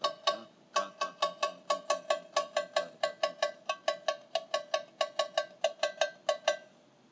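Tamborim, a small Brazilian frame drum, struck with a stick in a steady samba rhythm: short, sharp, pitched cracks about three to four a second. The playing breaks off briefly at the start and stops a little before the end.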